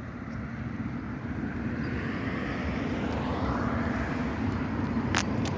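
Engine rumble of a passing vehicle, swelling gradually louder, with a couple of sharp clicks near the end.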